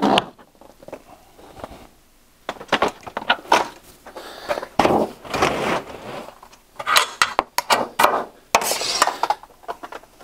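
A roll of trim coil being lifted and loaded onto a coil dispenser's rollers: irregular metal clanks and knocks, with the rattle and scrape of the coil against the dispenser's metal stand. The sharpest knock comes right at the start.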